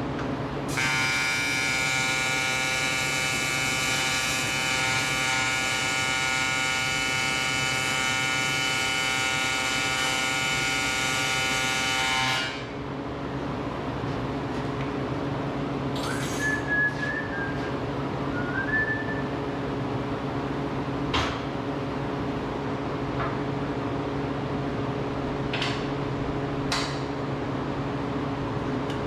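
AC TIG welding arc on aluminum tubing, buzzing steadily for about twelve seconds and then cutting off suddenly.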